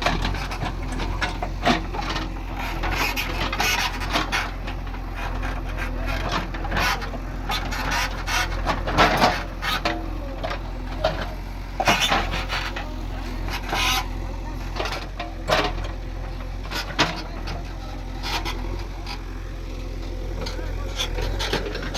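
JCB backhoe loader's diesel engine running steadily while it works, with irregular sharp knocks and scraping, the loudest knocks around nine and twelve seconds in.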